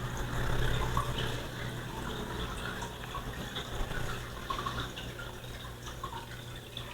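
Light handling noises, scattered small clicks and taps, over a steady low hum.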